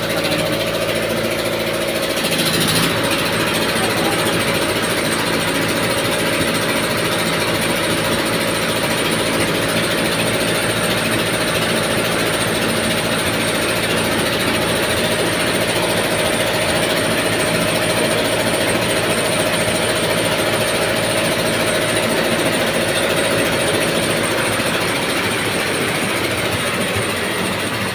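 Belt-driven rice mill running and milling grain, powered by a Mitsubishi 4DR5 four-cylinder diesel engine through V-belts: a loud, steady mechanical din with a steady high tone that comes in about two seconds in.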